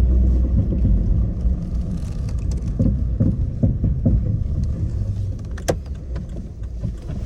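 Suzuki Swift Sport ZC31S (1.6 L four-cylinder) moving off, heard from inside the cabin: engine and road rumble, with a run of dull knocks between about three and four seconds in and a single sharp click a little before six seconds. The knocking is the kon-kon noise from the front end that comes on as soon as the car starts moving, which the owner suspects is in the drivetrain or a hub bearing.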